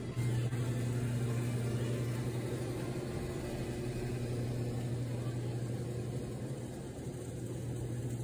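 Supermarket room noise: a steady low mechanical hum from refrigerated display cases and the store's air handling, starting abruptly just after the start.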